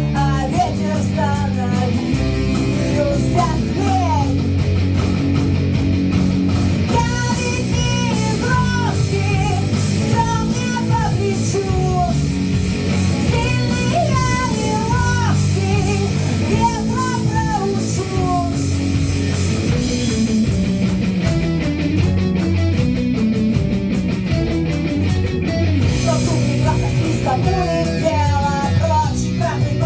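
Rock band playing a song, guitars over a steady low end with a wavering lead melody line on top.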